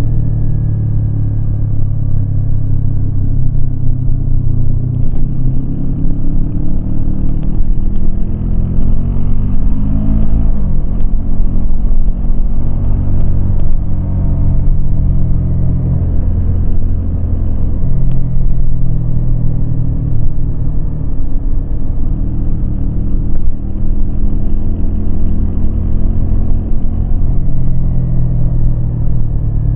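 Yamaha MT-25 parallel-twin engine running under way. It revs up over a couple of seconds, about a third of the way in, then drops back and holds a fairly steady pitch.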